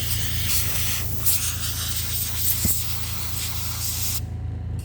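A jet of air hissing as it blows sanding dust out of the small crevices of a 3D-printed plastic gauntlet. It pauses briefly about four seconds in, over a steady low hum.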